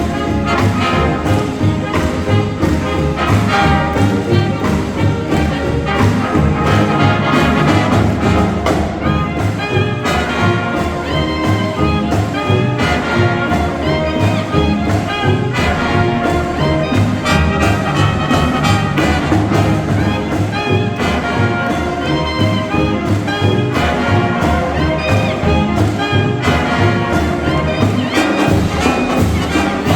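Marching band playing: brass ensemble over a steady drum beat, continuous and loud.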